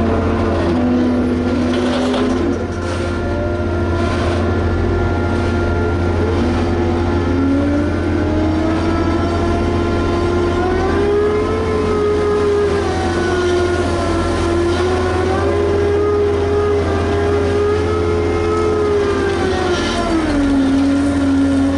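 Liebherr HS 8200 dragline's diesel engine running hard, its pitch rising and falling slowly, with a few metallic knocks about two to four seconds in and again near the end.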